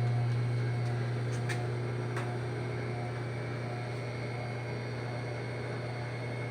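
Steady low hum over a faint hiss, slowly fading, with two faint clicks about a second and a half and two seconds in.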